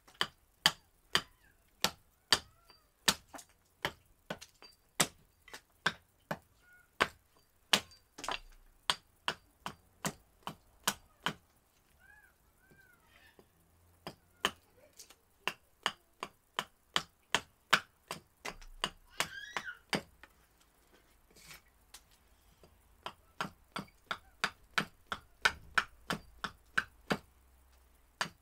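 Gränsfors Bruk Large Swedish Carving Axe hewing a split cherry spoon blank held upright on a chopping stump: quick, sharp chops, about two to three a second, stopping twice for a few seconds before starting again.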